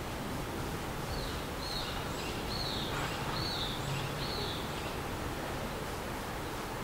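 A small bird calling about five times in a row, short high chirps a little under a second apart, over a steady outdoor hiss and low rumble.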